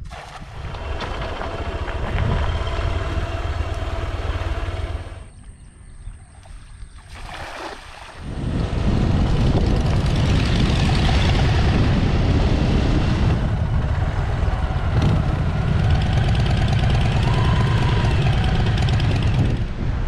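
Motorcycle engine running while riding, with strong wind rushing over the microphone. The sound drops away briefly about five seconds in, then comes back loud and steady.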